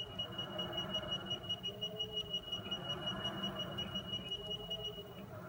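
Lagun FTV-2S vertical mill cutting a pocket in metal, the end mill running under feed with a steady high-pitched whine and a rapid, even pulsing. The whine stops shortly before the end.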